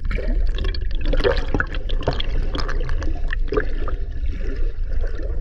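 Water churning and bubbling around a camera held underwater, heard through its housing as a dense, muffled rush with many sharp crackles and pops.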